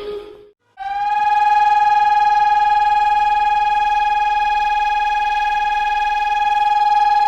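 A loud, steady electronic alarm tone with many overtones, holding one pitch. It comes in with a slight upward bend about a second in, after a brief silence.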